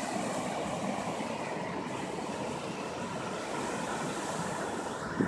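Steady rushing noise of ocean surf on the beach, with a short knock near the end.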